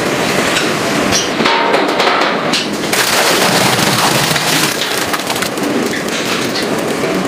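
Dense clattering and crackling noise of food-factory handling, with metal knocks and the pour of thick paste out of a tipped stainless-steel tub.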